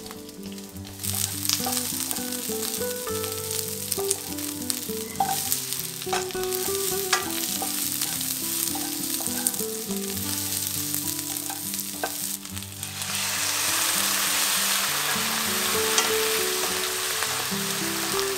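Onions and green bell pepper stir-frying in a hot wok, sizzling steadily, with a wooden spatula scraping and tapping against the pan. A little past two-thirds of the way through, the sizzle gets louder and hissier.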